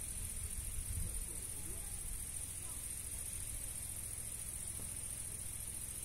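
Wind rumbling on the microphone in low gusts, strongest in the first second or so, over a steady high-pitched drone of insects in the summer grass.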